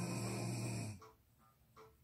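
A sleeping person snoring: one loud snore with a low, steady pitch that stops about a second in.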